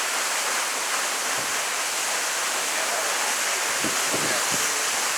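Waterfall: water falling and rushing in a steady, unbroken hiss, with a few soft low thumps about four seconds in.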